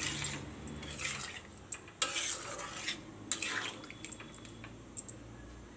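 Steel spatula scraping and clinking against a metal kadai while stirring a thick prawn and potato curry, a stroke about once a second, easing off about four seconds in.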